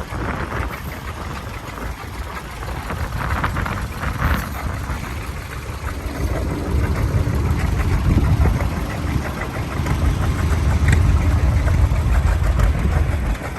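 Vintage farm tractor engine running, growing louder from about halfway through and dropping off just before the end.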